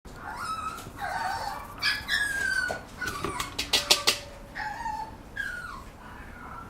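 Papillon puppy whimpering and yipping: a series of short, high calls, several sliding down in pitch. A few sharp clicks come in the middle.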